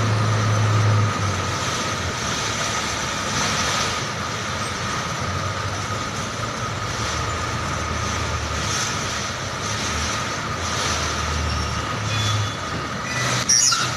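Hino 500 container truck diesel engines idling, a low rumble with a steady high whine over it, and a brief knock near the end.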